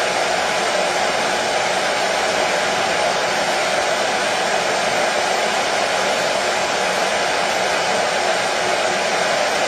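Hair dryer running steadily at one speed: an even, unchanging rush of air, strongest in the lower mid range.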